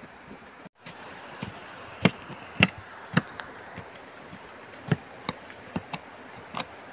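A small hand digging tool striking and chopping into packed soil and roots: about seven sharp, irregularly spaced strikes, the loudest about two and a half seconds in, over a steady background hiss. The sound cuts out completely for a moment just under a second in.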